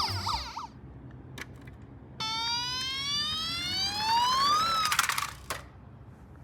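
Electronic siren of a toy ambulance: a fast warbling yelp that fades out within the first second, then after a pause a single rising wail for about two and a half seconds that stops abruptly about five seconds in.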